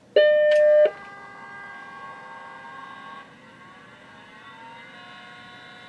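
Macintosh 512K startup beep, a single loud tone under a second long, followed by the HyperDrive 10 MFM hard drive spinning up: a steady multi-tone whine that rises in pitch and settles at speed about five seconds in, without any bad noise.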